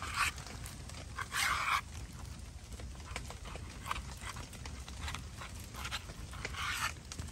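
Knife slicing through raw beef on a plastic cutting board in a few short strokes, with small crackles from a wood fire.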